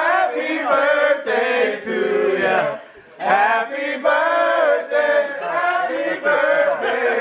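A small group of men singing a birthday song together, unaccompanied. The singing breaks off briefly about three seconds in, then carries on.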